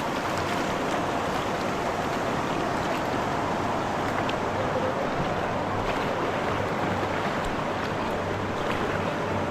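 River water rushing steadily around a raft on the Hiwassee River, with a few faint ticks of splashing.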